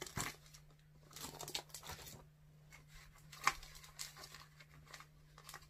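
Clear plastic comic-book bags crinkling and rustling as the comics are handled and shuffled, in short irregular crackles with a sharper one about three and a half seconds in. A faint steady low hum runs underneath.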